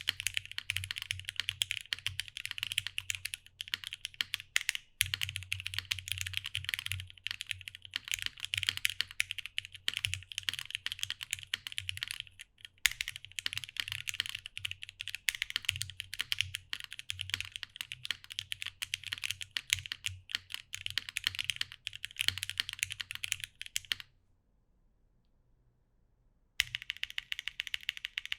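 Fast continuous typing on a TGR Jane V2 ME custom mechanical keyboard fitted with vintage West German Cherry MX Black linear switches, lubed and filmed, under GMK keycaps on an O-ring-mounted aluminium plate. The typing stops for about two seconds near the end, then resumes.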